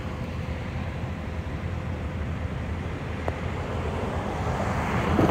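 Steady low rumble of distant road traffic, swelling near the end as a vehicle passes closer.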